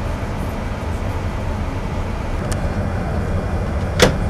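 Steady low rumble of a jet airliner cabin on the ground: engine and air-conditioning noise. A single sharp click comes near the end.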